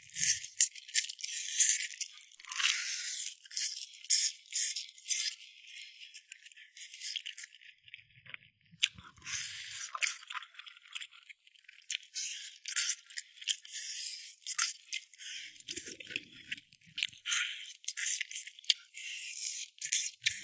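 Close-miked crunching and crackling of crispy fried food being bitten and chewed, a dense run of sharp crackles that pauses briefly now and then.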